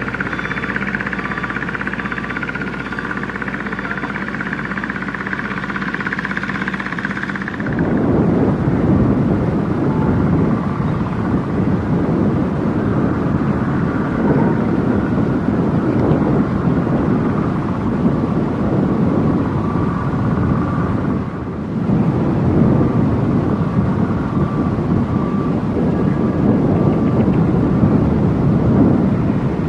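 Komatsu PC78US mini excavator running and digging. For the first several seconds there is a steady engine hum. About eight seconds in it changes abruptly to a louder, rough, rumbling working noise as the machine digs among rocks, with a brief dip a little past twenty seconds.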